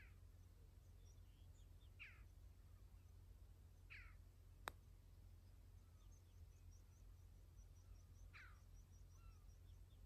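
A putter strikes a golf ball once, a single sharp click a little under halfway through. Around it are faint, distant bird calls: a short falling call repeated every two seconds or so, and a quick run of high, thin chirps near the end.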